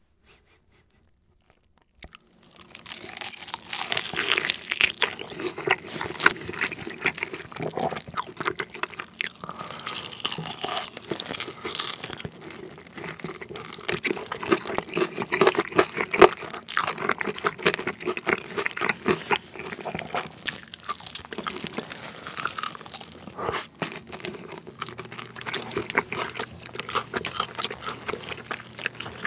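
Close-miked biting and chewing of red-sauced fried chicken wings (BHC Red King): crisp crunches and wet chewing that go on steadily, starting after about two seconds of silence.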